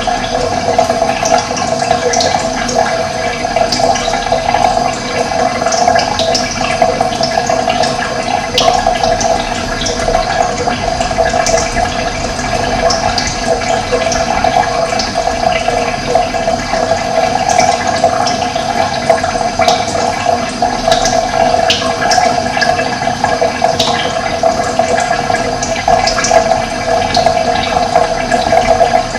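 Running water flowing steadily, a continuous rushing sound, with brief high-pitched sounds scattered through it.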